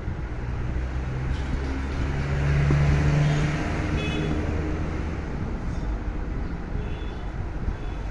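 Road traffic: a motor vehicle running past, its engine hum and noise swelling to loudest about three seconds in, then fading back to a steady traffic rumble.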